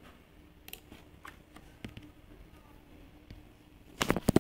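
Faint room tone with a few scattered light clicks, then a quick run of loud sharp clicks and knocks near the end.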